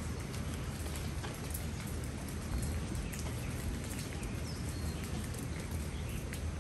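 Steady rain falling on leafy plants, a constant hiss with many scattered sharp drop hits close by.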